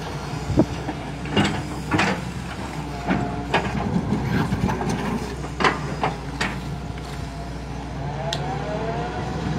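Hitachi EX200 excavator's diesel engine running steadily under hydraulic load, with several sharp metallic clanks and knocks as the bucket and tracks work the dirt bank. A wavering whine comes in near the end.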